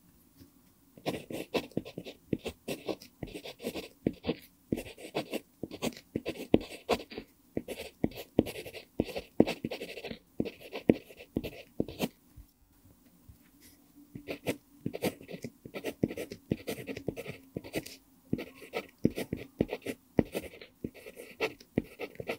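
Pentel PG5 mechanical pencil writing Korean characters on lined paper: quick scratchy strokes and light taps of the lead, starting about a second in, with a short lull about halfway through.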